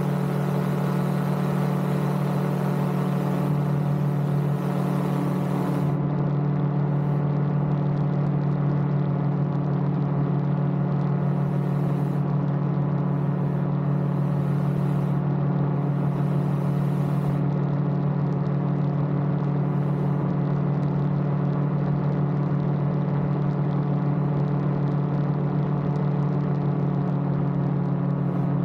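Rotax 915iS turbocharged flat-four engine and pusher propeller of an AutoGyro MTOsport gyroplane running steadily through the takeoff roll and climb-out, a constant deep drone with an even stack of engine tones.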